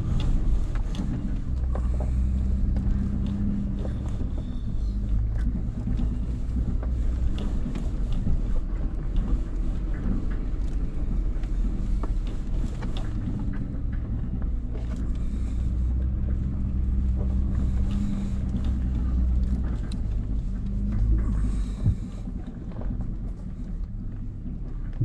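Nissan Frontier Pro-4X's V6 running at a low, steady rumble as the pickup crawls over a rocky dirt track, heard from inside the cab. Frequent small knocks and rattles come from the truck jolting over rocks.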